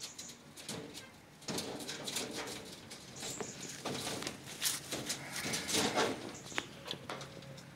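Dry hay rustling and crackling in irregular bursts as Greek giant rabbits feed and root through it, starting about a second and a half in and busiest in the middle.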